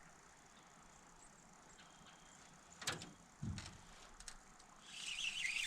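Faint quiet broken by a sharp click and a low thump about three seconds in. Near the end comes a busy mechanical rattle, typical of a spinning reel being cranked.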